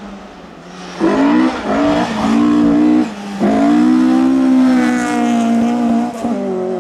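Rally car engine at high revs on a loose gravel stage: faint as it approaches, then loud from about a second in, with a few short dips at gear changes or lifts before a long stretch held at high revs through the corner, easing near the end. Gravel crunch and spray under the tyres.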